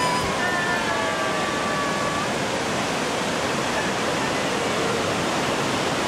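Whitewater rapids of a fast, muddy river pouring through a rock gorge: a loud, steady roar of rushing water.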